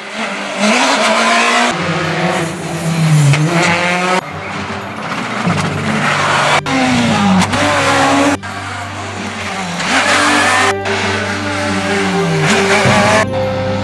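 Rally car engines revving hard and dropping in pitch between gear changes as the cars come up a tarmac stage. The engine note changes abruptly several times as one car's sound is cut to the next.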